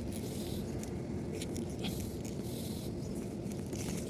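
Faint scrapes and light clicks of hand tools working on an air conditioner's refrigerant line fittings, over a steady low background noise.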